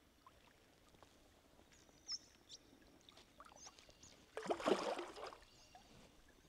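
A short splash of water about four and a half seconds in, lasting about a second, with faint bird chirps and small ticks before it.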